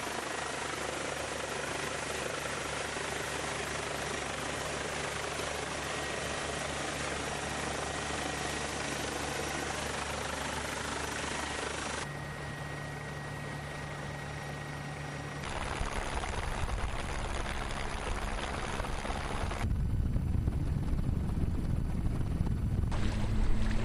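Steady helicopter drone with a constant low hum. The sound changes abruptly several times as the shots cut, and a heavier low rumble fills the last several seconds.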